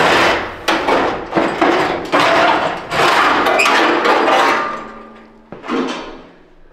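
A sheet-metal inner fender being wrenched and pulled loose from an old Ford pickup, with a rapid series of loud metal clangs, bangs and scrapes. The clatter dies away near the end.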